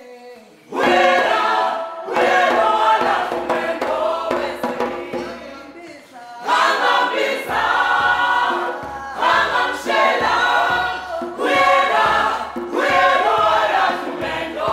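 A group of voices singing together in short phrases, with brief breaks between them.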